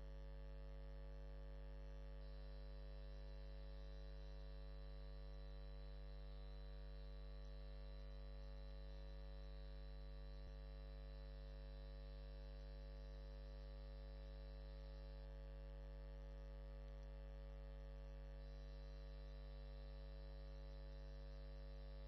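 Faint, steady electrical mains hum: a low drone with a stack of even overtones, and one small click about halfway through.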